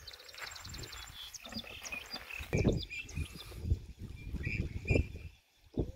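Small birds chirping and calling, with a quick trill near the start. Gusts of wind buffet the microphone in uneven low rumbles.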